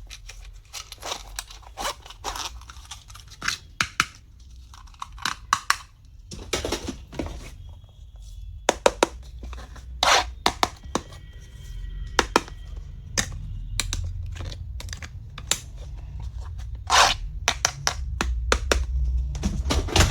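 Close-up handling of plastic packaging and small stationery items: crinkling and tearing rustles mixed with many sharp clicks and light knocks.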